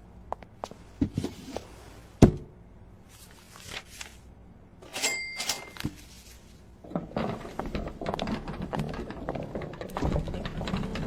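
Cartoon sound effects: several separate knocks and thuds, then a short high beep about five seconds in. For the last few seconds there is a dense, busy clatter.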